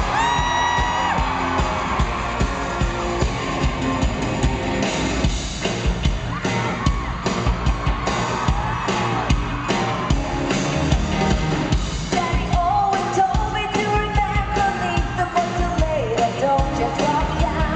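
Live pop-rock band music at concert volume through a PA, with a driving drum beat under female lead vocals. The singing comes through more clearly with held notes from about two-thirds of the way in.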